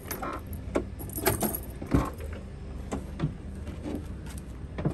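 Light, irregular clicks and metallic jingling, like keys or small hard objects being handled, over a steady low hum.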